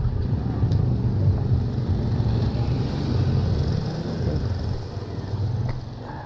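Wind buffeting the microphone and road rumble while riding an electric kick scooter: a low, uneven rumble that eases off a little near the end.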